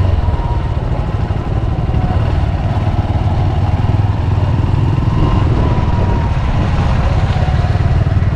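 Trail motorcycle engine running at low speed while riding, heard close up from the rider's seat as a steady rumble.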